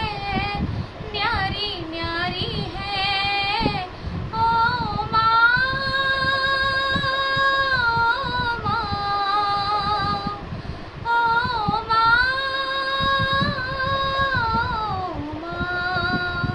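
A girl singing a song solo and unaccompanied, with a single melodic voice. She holds two long notes, and near the end her pitch slides down.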